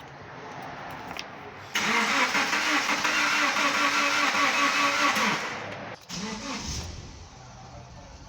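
Subaru Liberty's starter cranking the engine in even pulses for about three and a half seconds, on a car with an intermittent crank-no-start fault. After a short break near the end, a quieter low engine rumble follows as the engine catches and runs roughly.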